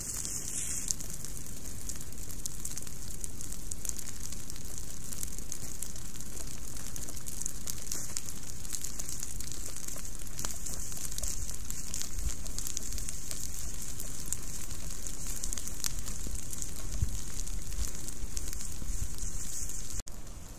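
Leaf-litter ground fire of a controlled burn crackling steadily, a dense patter of small pops over a steady hiss.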